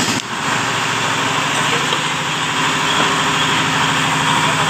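A small motor running steadily at a constant pitch, with a steady hiss over it.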